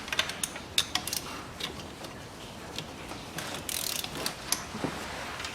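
Ratchet wrench clicking in short runs as a nut is undone, with scattered sharp metal clicks and a brief hiss a little past halfway.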